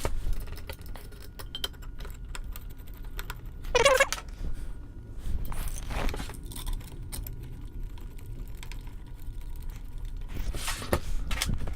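Small metal parts clicking and clinking as screws and tools are handled to bolt the Ender 3's aluminium frame together. A brief high, wavering whine comes about four seconds in.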